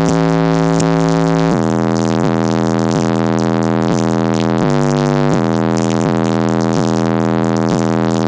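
Bass-heavy music played very loud through a car audio system with a Digital Designs 1012 subwoofer, overloading the recording into a distorted buzz. The bass line steps between low notes every second or so.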